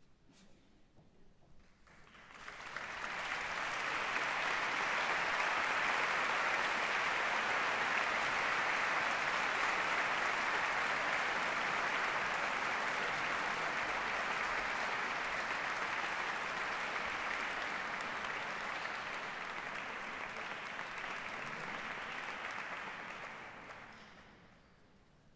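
Audience applauding: the clapping starts about two seconds in, swells quickly to a steady level, and dies away near the end.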